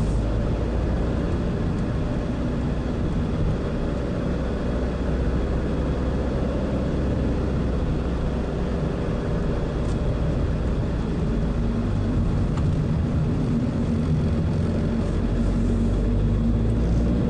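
Car driving along a country road, heard from inside the cabin: a steady drone of engine and tyre noise, with the engine note shifting slightly now and then.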